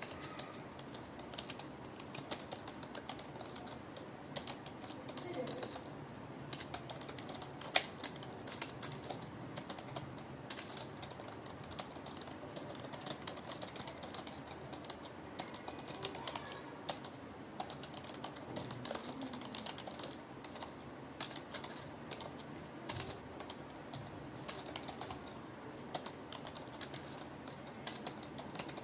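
Computer keyboard being typed on continuously, with a fast, irregular run of key clicks and one sharper keystroke about eight seconds in.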